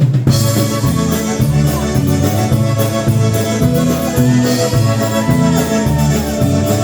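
Live band playing an instrumental passage with a steady, rhythmic bass line under sustained chords, between sung verses.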